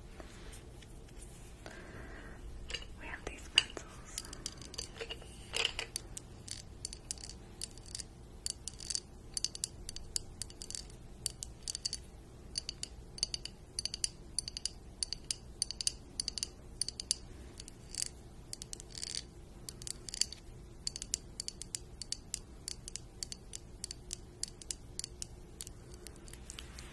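Long pointed acrylic nails tapping and scratching on a clear container of colored pencils, with the pencils clicking against one another: a fast, irregular run of light clicks and scrapes that starts a couple of seconds in.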